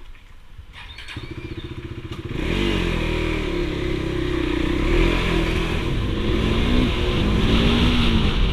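KTM 390's single-cylinder engine. It comes in about a second in with a low, even putter, then gets much louder about two seconds in as the bike pulls away, its pitch rising and falling as the throttle is worked.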